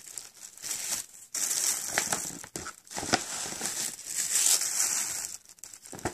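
Paper shopping bag crinkling and rustling as a hand rummages inside it, in irregular bouts with brief pauses.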